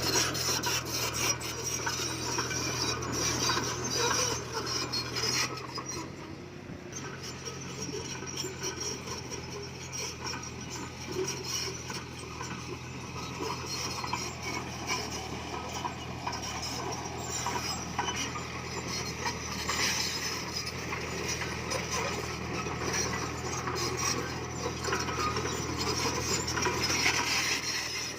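Komatsu D20P bulldozer's diesel engine running with a steady low drone while its blade and tracks grind and scrape through stone. The scraping eases for a moment about six seconds in, then picks up again.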